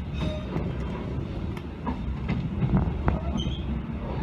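Passenger train running along the track, heard from inside the coach: a steady low rumble with scattered clicks from the wheels and rail joints.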